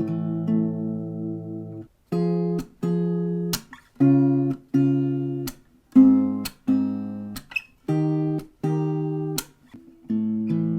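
Carbon-fibre acoustic guitar, an Enya Nova Go SP1, played unplugged: a held strummed chord, then a rhythm of short chords struck in pairs and muted sharply between strokes, ringing out again near the end.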